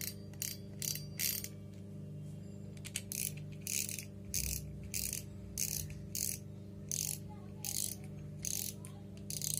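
Lucana Spin 40 spinning reel's mechanism turned by hand, making short rasping clicks. A few come at the start, then an even run of about two to three a second from about three seconds in.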